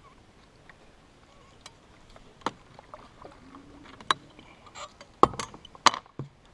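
Scattered sharp knocks and clicks of gear being handled in a small fishing boat, a few at first and louder ones in a quick cluster near the end.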